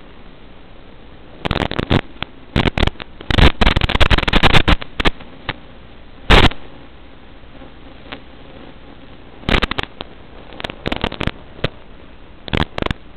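Analog FPV video receiver audio: a steady hiss broken by irregular bursts of loud crackling static, densest a couple of seconds in and again near the end. It is the sort of breakup heard as the drone's video signal weakens.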